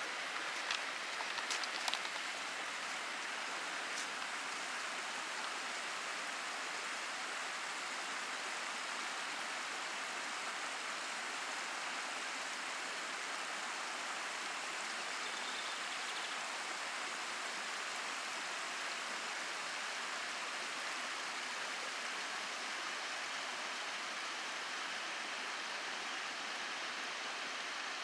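Small forest stream babbling steadily, an even rushing hiss, with a few brief sharp ticks in the first couple of seconds.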